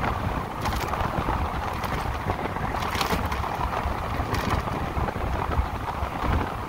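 Wind buffeting the microphone and road noise from a moving electric motorcycle, with a few short bursts of hiss.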